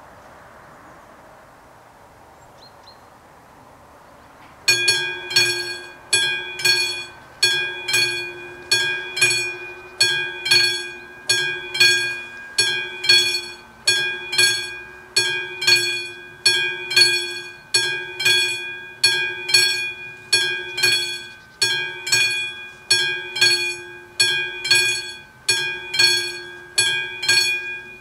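Level-crossing warning bells of an AŽD 71 crossing start ringing almost five seconds in, then strike steadily about one and a half times a second, each strike ringing on briefly: the crossing has activated to warn of an approaching train.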